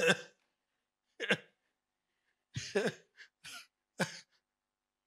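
A man laughing into a handheld microphone in about six short breathy bursts, with silence between them.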